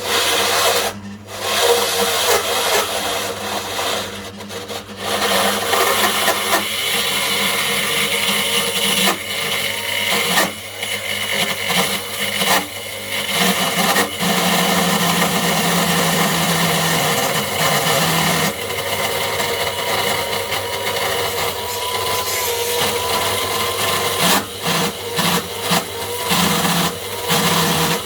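Sewing machine motor running overvolted on 400 V, its bearing failing. It makes a loud, rough mechanical noise that dips briefly several times.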